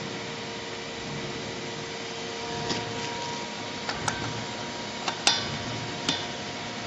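A mounting clip being fitted: a handful of sharp clicks and taps of hard parts, the loudest about five seconds in with a short metallic ring, over a steady low hum.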